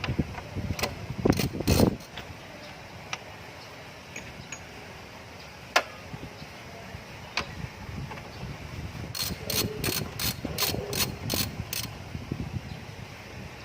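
Hand tools and metal parts clicking and knocking while a car's radiator fan motor is being taken out, with a few scattered clicks, then a quick run of about eight sharp clicks near the end.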